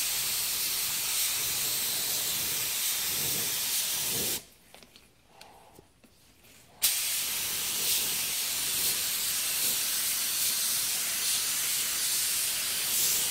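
Compressed-air paint spray gun hissing steadily as it sprays primer onto a plastic bumper cover. The trigger is let go for about two seconds a third of the way in, then the spraying starts again.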